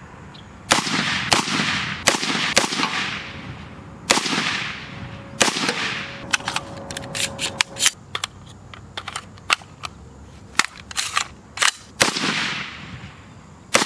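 Rifle gunfire: a series of shots at irregular spacing, the loud ones trailing off with an echo, and a quick string of sharper, thinner shots between about six and eight seconds in.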